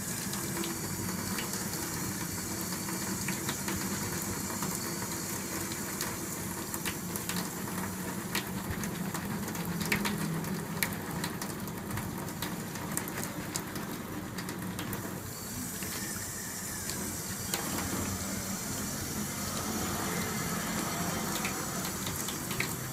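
Tap water running steadily into a stainless-steel sink, with scattered small splashes and clicks as a bar of soap and a sponge net are worked in wet, lathered hands.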